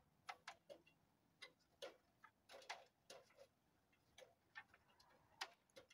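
Faint, irregular light clicks and taps, about a dozen spread unevenly over a few seconds.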